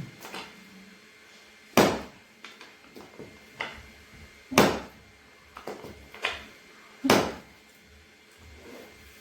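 Chiropractic adjustment thrusts to the hips, landing as three loud thumps about two and a half seconds apart, with lighter clicks and knocks between them.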